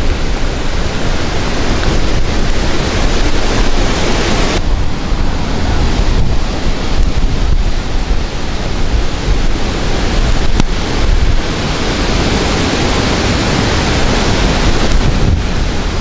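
Storm-force wind blasting across the camera microphone: a loud, continuous rush with heavy low buffeting. It changes abruptly about four and a half seconds in and again near eleven seconds.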